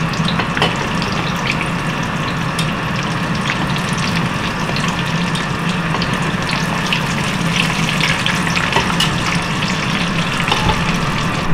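Breaded zucchini sticks shallow-frying in hot oil in a small frying pan: a steady sizzle with many small crackles and pops, as the pieces are turned over with tongs.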